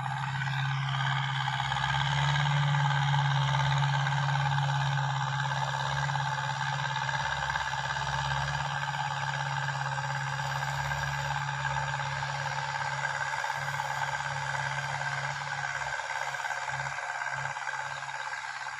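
Ford farm tractor's diesel engine running steadily under load as it pulls a disc harrow through a ploughed field, a continuous low drone.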